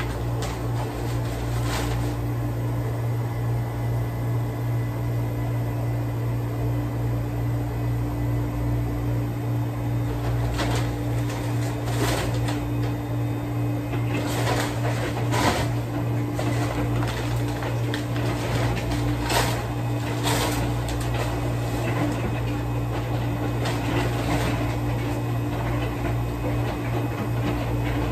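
Steady low mechanical hum of commercial kitchen equipment, with scattered short rustles and knocks of paper bags and supplies being handled.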